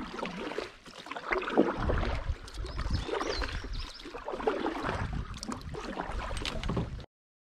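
Double-bladed kayak paddle strokes: the blades dip and pull through the water in irregular splashes and drips. The sound cuts off abruptly near the end.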